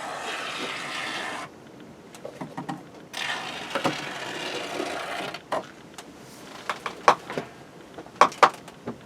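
A can of spray foam insulation hissing in two steady bursts, the first about a second and a half long and the second about two seconds, as holes are filled. Several sharp clicks and knocks follow near the end.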